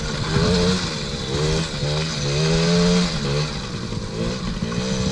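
A kids' ATV's 50cc two-stroke engine revving up and down several times as the throttle is worked while riding.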